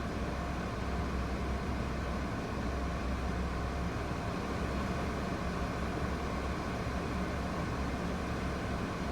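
Steady low engine hum and cabin noise inside a Nissan Moco kei car with its engine running, even throughout with no change.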